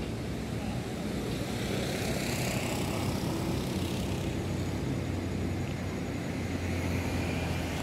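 A steady engine drone with a low hum that grows stronger in the second half.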